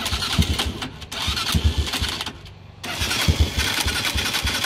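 Small air-cooled motorcycle engine running on lighter fluid, sputtering and catching unevenly. It cuts out briefly twice, then fires more steadily from about three seconds in.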